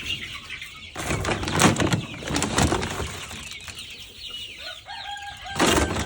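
A flock of young chickens clucking and chirping, with bursts of rustling, scraping noise that are the loudest sounds.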